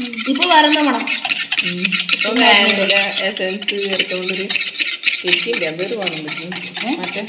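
Wire whisk beating eggs by hand in a plastic mixing bowl, a fast run of clicking and slapping as the wires hit the bowl. A voice is heard over it now and then.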